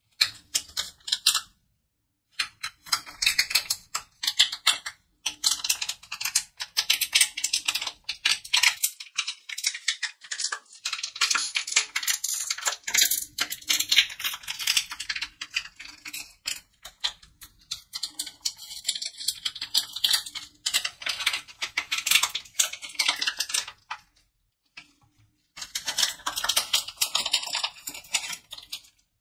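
Plastic wrapper of a QBO soft caramel crinkling and crackling in gloved hands as it is twisted and unwrapped: dense runs of quick crackly clicks, with short pauses about two seconds in and near the end.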